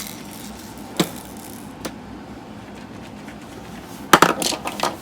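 Light clicks and knocks of objects being handled: one sharp click about a second in, then a quick run of louder knocks near the end.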